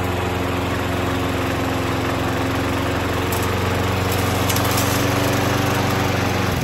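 Walk-behind lawn mower's single-cylinder engine running at a steady speed while it burns off excess oil from an overfilled crankcase.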